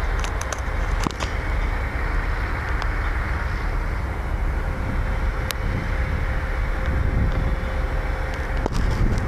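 Steady low rumble of heavy construction machinery across a building site, with a faint steady whine for a few seconds in the middle and a few light clicks.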